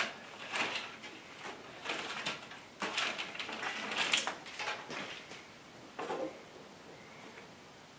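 Irregular rustling and scraping of old wiring being pulled and handled, in short uneven strokes, quieter after about six seconds in.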